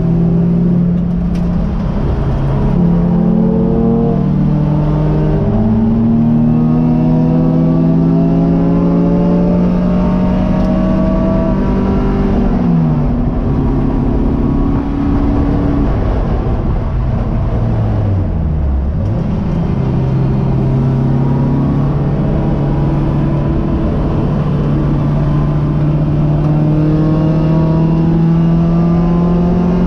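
Race car engine heard from inside the cockpit, pulling up through the gears with the pitch climbing and stepping at each shift. It then drops as the car brakes and downshifts to its lowest revs about two-thirds of the way in, before accelerating again and holding steady at high revs.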